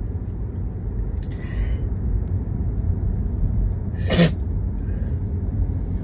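A single sharp sneeze about four seconds in, over a steady low rumble inside a car.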